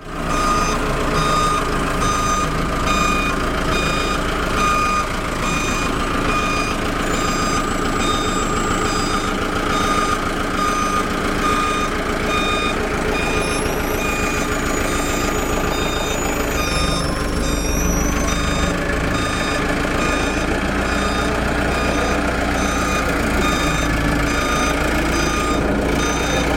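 Truck reversing alarm beeping steadily, about once a second, over the low steady rumble of the truck's engine running.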